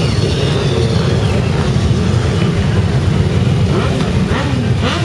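Many motorcycle engines running in a slow-moving column, a steady low rumble, with engines revving up and down in the second half.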